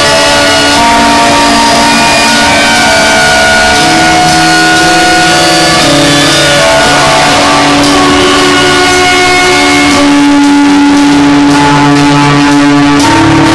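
Loud, distorted live noise music: stacks of held drone tones that shift to new pitches every couple of seconds, recorded overloaded. A fast pulsing texture comes in for the last few seconds.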